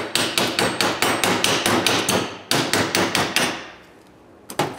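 Rapid tapping of a hand tool against a steel brake caliper mounting bracket, about five strikes a second in two runs, then a pause and two more strikes near the end: knocking the old pad hardware loose from the bracket.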